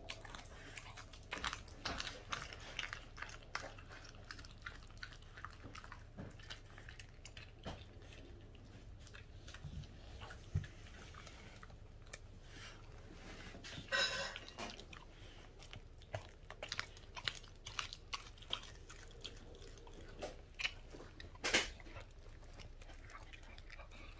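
A Welsh corgi chewing and biting into a whole raw chicken: irregular wet chomps and crunches, with a louder burst of crunching a little past halfway and a sharp loud crunch near the end.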